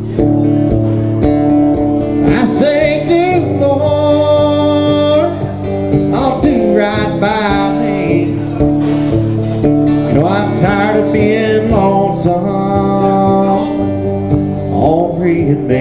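Solo acoustic guitar playing a slow country song, with a man singing long, wavering notes over the chords.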